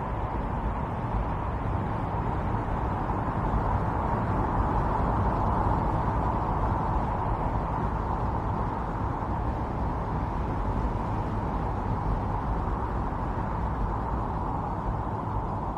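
Strong wind blowing steadily in a winter storm, a deep rumble under a rushing hiss, swelling slightly a few seconds in.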